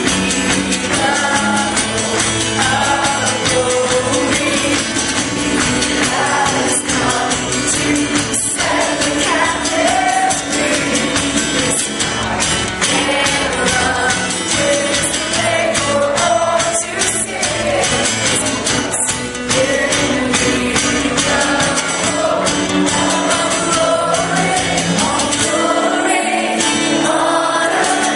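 Church worship music: voices singing a melody over instrumental accompaniment, running on without a break.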